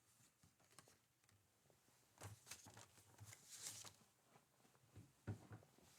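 Near silence: room tone with faint rustling and a few soft clicks, busiest in the middle.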